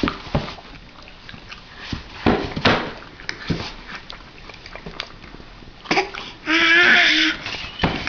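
A baby making noises while being spoon-fed: mouth smacks and clicks, short breathy sounds, then a loud drawn-out wavering squeal of nearly a second starting about six and a half seconds in.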